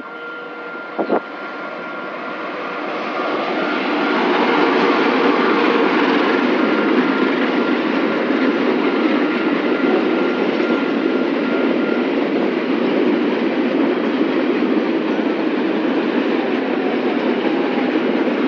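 A freight train of flat wagons loaded with concrete railway sleepers, hauled by a GE-built CC 206 diesel-electric locomotive, passing close by. The rumble of locomotive and wheels on the rails builds over the first four seconds, then the wagons roll past steadily. A thin steady whine sounds through the first twelve seconds, and a couple of sharp knocks come about a second in.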